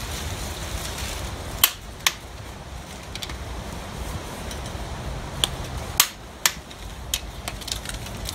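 Torque wrench and socket on engine-mount bolts giving sharp metallic clicks as each bolt is checked at 65 ft-lb: two pairs of clicks, about two seconds in and about six seconds in, with a few fainter ticks between.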